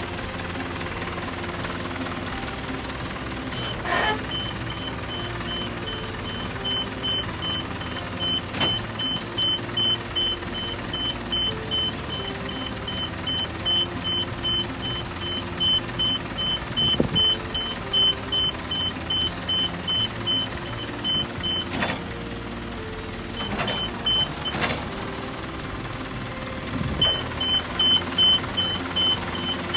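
The hydraulic system of a UNIC Carrier self-loader deck on an Isuzu Elf truck runs with a steady hum, as a high warning beeper sounds in rapid, even beeps for as long as the deck is being worked. The beeping starts about four seconds in and breaks off twice near the end. A few sharp clunks come through as well.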